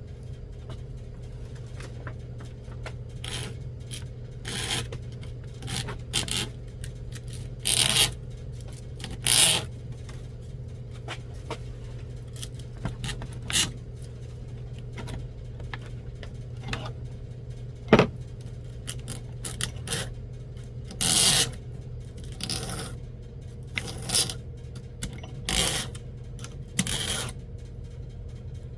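Hand cutting tool scraping through a small copper pipe clamped in a vise, in uneven strokes, until it cuts through. A sharp click about two-thirds of the way in, over a steady low hum.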